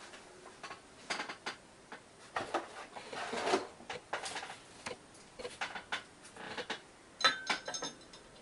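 Metal parts being handled: a metal mounting plate offered up to an electric motor's face, giving a string of light clicks, knocks and short scrapes. A few sharp metallic clinks with a brief ring come near the end.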